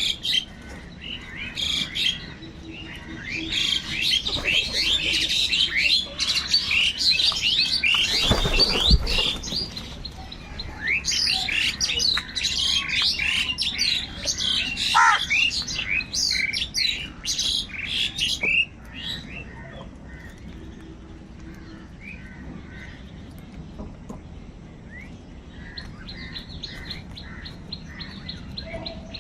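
A flock of birds calling and chirping at once, many short calls overlapping, busiest through the first two-thirds and then thinning to scattered calls. A brief low rumble about eight seconds in.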